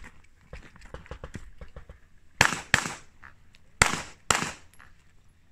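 Four pistol shots fired in two quick pairs, double taps about a second and a half apart, after a couple of seconds of light footsteps.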